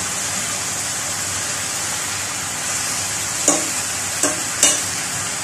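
Raw chicken pieces frying in hot oil in a pot, a steady sizzling hiss. About three and a half seconds in, a metal ladle starts stirring them, knocking and scraping against the pot three times.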